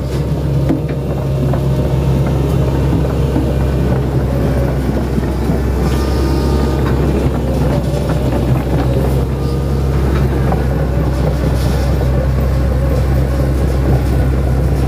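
Hitachi 110 hydraulic excavator's diesel engine running with a steady low drone as the machine works.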